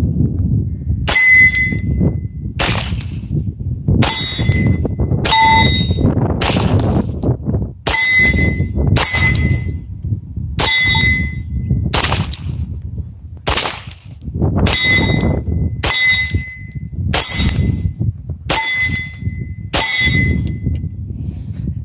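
Beretta M9A3 9mm pistol firing a string of about fifteen shots, roughly a second apart with a few longer pauses, and a short metallic ping ringing after most of them. Wind rumbles on the microphone throughout.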